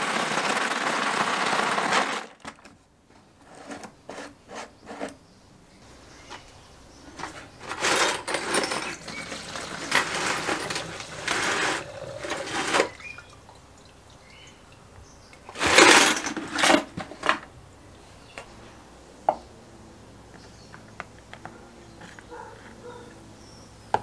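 Liquid sloshing in a plastic jerrycan as it is shaken, ending about two seconds in. Later the liquid is poured from the jerrycan into a metal funnel in several uneven spells, followed by a brief louder noise, then only faint small clicks.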